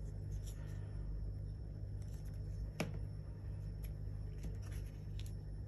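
Paper cut-outs and card being handled: faint light rustles and taps, with one sharper click nearly three seconds in, over a steady low hum.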